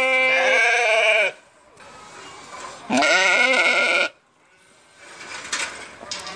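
Sheep bleating: one long wavering bleat that ends about a second in, then a second bleat about three seconds in that lasts about a second.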